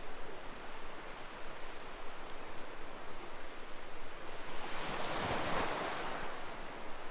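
Small waves washing onto a pebble beach: a steady wash of surf, with one wave swelling, breaking and running up the stones about five seconds in.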